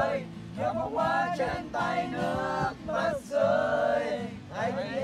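Several young men singing a song together, accompanied by a strummed acoustic guitar, in phrases with long held notes.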